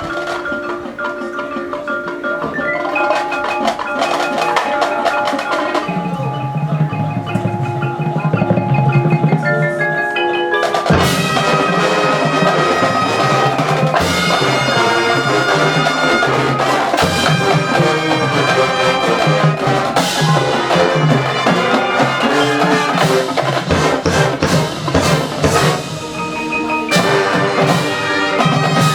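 High school band music: mallet percussion (marimba, xylophone, glockenspiel) over sustained band chords, opening into a fuller, louder full-ensemble passage about eleven seconds in.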